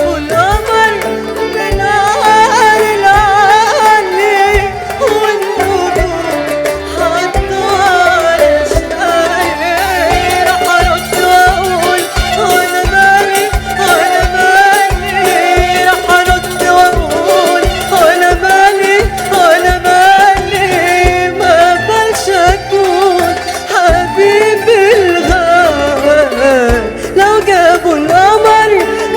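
Middle Eastern band music: a wavering, ornamented melody over a steady drum beat.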